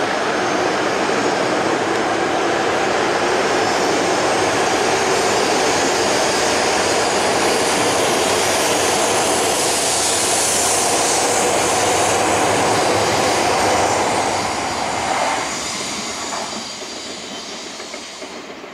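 A ten-car Tohoku Shinkansen bullet train moves out along the platform with a steady, loud rush of running noise and a brief rise in high hiss midway. About fifteen seconds in, the last car clears and the noise fades away.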